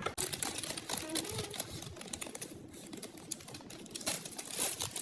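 A rapid, irregular series of small clicks and taps.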